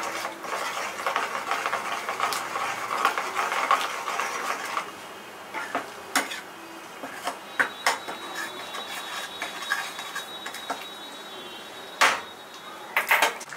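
A steel ladle stirring and scraping thick masala in a non-stick kadai, busy and continuous for the first few seconds, then sparser strokes. Near the end, a few sharp knocks of the ladle against the pan.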